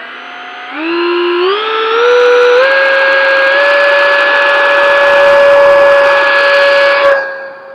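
Freewing Stinger 64 mm electric ducted fan on a 4S battery spooling up in steps to a loud whine with rushing air, held at full power through the hand-launch. The throttle is cut abruptly about seven seconds in.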